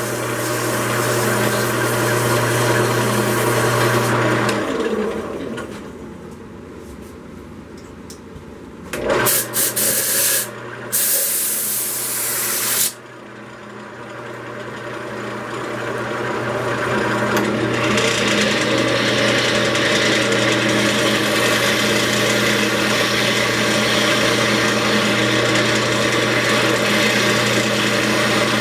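Wood lathe running while 220-grit sandpaper rubs on the spinning wooden tankard blank. The sanding noise drops away about five seconds in, a few short harsh bursts come around ten seconds, and steady sanding builds back up from about fourteen seconds on.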